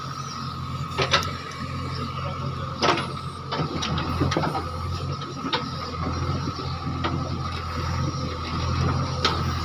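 JCB digger's diesel engine running steadily with a steady high whine over it, and several sharp metallic clanks from the working bucket and arm.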